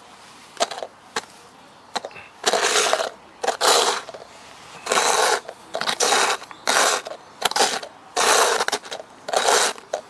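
Thin plastic cups being slid and scraped across a concrete pavement, about eight scraping bursts of roughly half a second each, with a few short sharp taps in the first two seconds.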